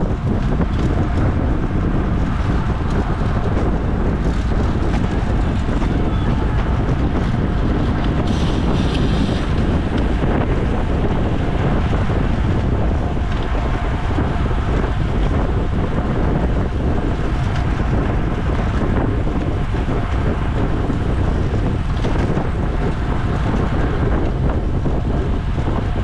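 Steady wind rush buffeting the microphone of a bike racer's camera at race speed, with a brief higher hiss about eight seconds in.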